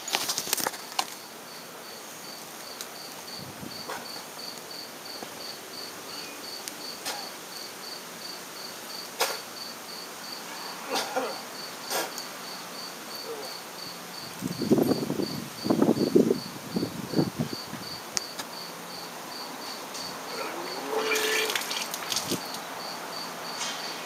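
A man retching and vomiting: a series of loud heaving bursts about two-thirds of the way through, with more heaving near the end. An insect chirps steadily throughout, a short high chirp about three times a second.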